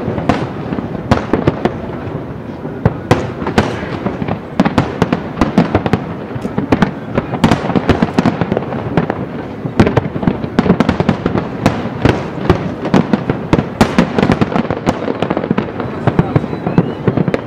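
Aerial fireworks shells bursting in rapid, overlapping succession: a dense, unbroken run of booms and crackles.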